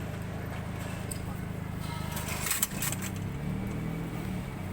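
A machine's engine running with a steady low hum, its note wavering from about halfway through, with a few faint sharp clicks.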